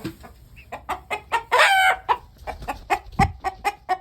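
Chickens clucking in quick short notes, with one loud drawn-out call about a second and a half in.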